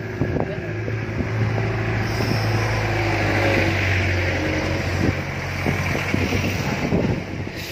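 Engine of an old pickup truck running as it drives up the road and passes close by: a steady low hum that grows louder toward the middle and eases off near the end.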